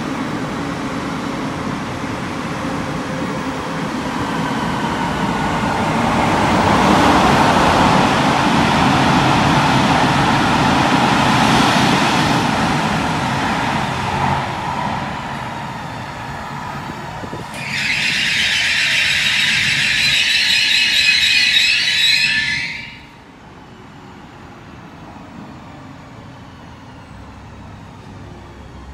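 Electric trains in an underground station. An X61 Pågatåg whines as it pulls away, then the rumble swells as an SJ X2000 runs in. A high, wavering squeal starts suddenly about halfway through and lasts about five seconds, then cuts off, leaving a quieter steady hum.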